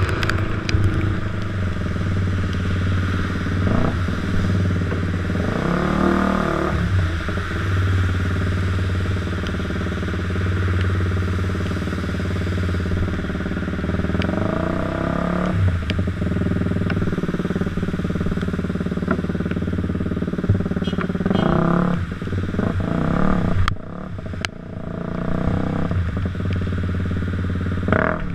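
Motorcycle engine running steadily while riding on a wet, flooded road, with a few short louder rushes of noise.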